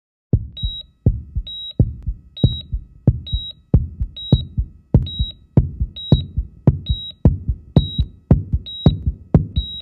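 Heartbeat sound effect: a steady, regular deep double thump about one and a half times a second, with a short high-pitched beep like a heart monitor's repeating alongside it.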